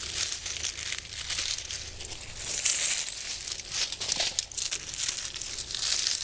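Dry, dead heuchera leaves crackling and rustling as they are pulled and snipped off the plant with hand pruners, in quick irregular crinkles close to the microphone.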